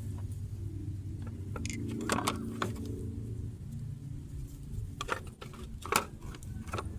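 Scattered metallic clinks and rattles of hand tools and parts being worked on a car's wheel hub assembly, with a few sharp knocks, the loudest about six seconds in, over a steady low hum.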